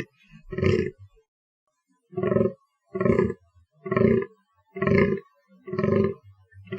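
Fallow deer buck groaning in the rut: short, deep, belching calls. One comes about half a second in, then after a pause six more follow at about one a second.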